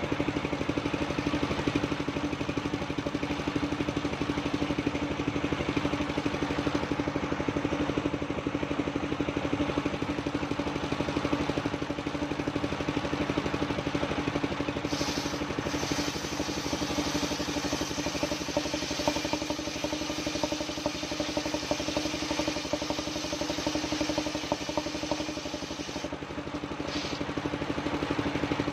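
Engine-driven mobile circular sawmill running steadily. From about halfway through until near the end a brighter, hissing rasp is added as the blade cuts old coconut timber.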